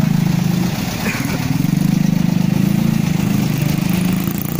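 Diesel engine of a heavily loaded palm-fruit truck running at low revs with a fast, even throb; it eases off briefly about a second in, then pulls strongly again.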